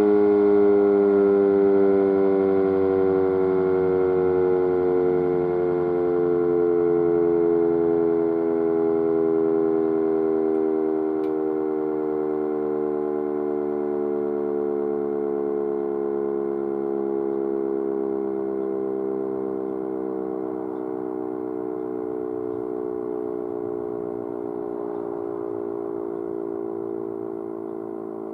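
Sentry 5V mechanical warning siren winding down: its tones slide slowly and steadily lower in pitch as it fades.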